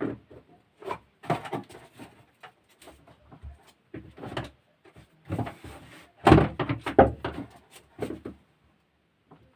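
Irregular clicks, knocks and scraping of pliers and parts being handled as a part is fitted onto a battery sprayer pump by hand. The loudest knocks come about six to seven seconds in.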